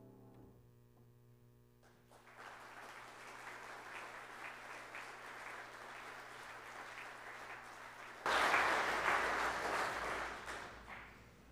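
The last notes of a grand piano ring and die away, then a congregation applauds. The applause grows suddenly louder about eight seconds in and fades out near the end.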